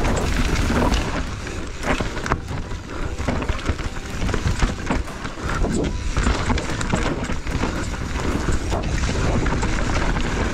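Mountain bike running fast down a rough enduro trail: wind rushing over the microphone and tyres over dirt and rock, with frequent knocks and rattles from the bike.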